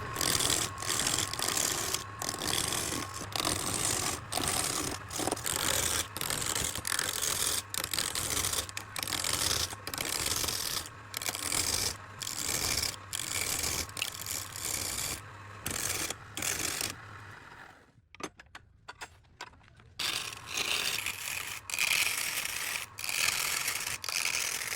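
Wood-turning lathe spinning a redwood blank while a tool cuts and scrapes the wood, a noisy scraping in many short broken runs over a steady hum. Around 18 to 20 seconds in it drops to quieter clicks before the scraping starts again.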